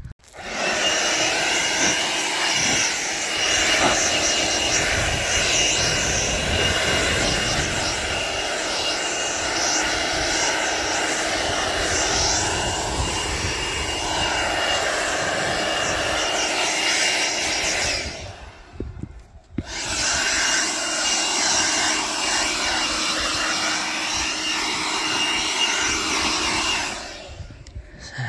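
Handheld blower running with a steady whine, blowing sawdust off freshly chainsaw-milled oak. It cuts out briefly about 18 seconds in, starts again, and stops shortly before the end.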